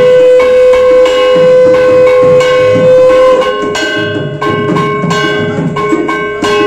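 A hand bell rung in a steady rhythm of about two strikes a second during an arati, each strike ringing on. Under it a loud, long held tone drops slightly in pitch about three seconds in.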